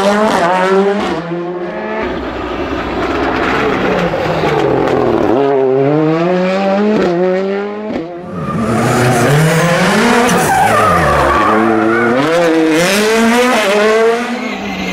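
Rally car engines accelerating hard, the pitch climbing and then dropping back again and again with each gearshift. It starts with a Ford Fiesta R5's turbocharged 1.6-litre four-cylinder pulling away, and after a short break at about eight seconds another rally car is heard revving up through the gears.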